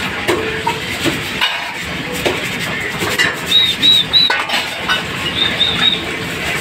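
A bird chirps in two quick runs of three short, high chirps, over steady background noise and scattered knocks and clatter.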